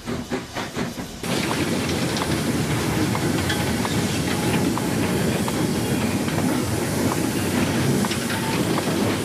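Steam locomotive working: quick rhythmic exhaust beats, about four a second. After about a second the sound changes suddenly to a steady rumble of the engine and wagons rolling, with scattered clicks and clanks from the rails.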